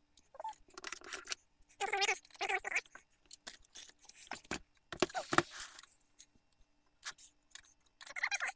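Fast-forwarded handling noise: a string of short knocks, clicks and rattles as a heavy metal pedestal computer case is gripped and tipped over onto its side, sped up so everything sounds quick and squeaky.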